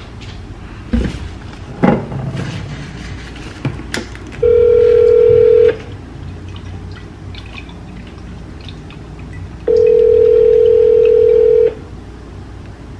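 Ringback tone of an outgoing phone call, heard through a smartphone's speaker: two steady rings, the second about two seconds long and coming four seconds after the first ends. A few short knocks come in the first four seconds.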